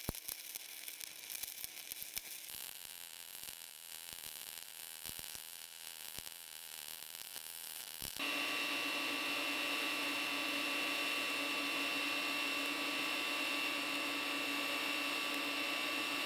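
Electric arc welding crackling irregularly. After a cut about 8 seconds in, a TIG welding arc gives a steady, even hiss with a high whine held under it.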